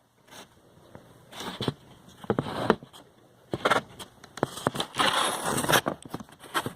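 Handling noise from pliers and stiff electrical wires being worked: irregular clicks and rustles, with a longer scraping rustle about five seconds in.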